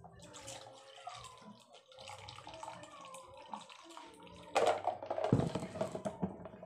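A drink poured from a plastic pitcher into a paper cup. It trickles faintly at first, then splashes louder and fuller from about four and a half seconds in.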